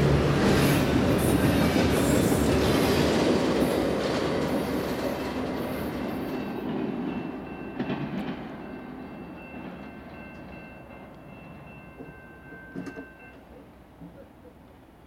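Canadian Pacific double-stack intermodal freight train passing close at speed, a loud rush of rail cars that fades steadily as the end of the train runs away into the distance. A thin high squeal carries for several seconds midway, with a couple of light knocks.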